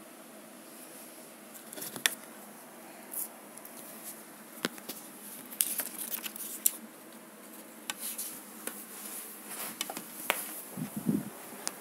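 Irregular sharp clicks and short rustles of a phone being handled and moved, with a short dull thump near the end, over a faint steady hiss.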